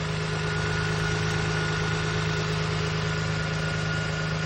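Toyota Sienna's 3.0 L V6 idling steadily and smoothly, with a steady high tone running under it: the idle is even again after the misfire repair, with its throttle body cleaned and VVT and oxygen sensors replaced.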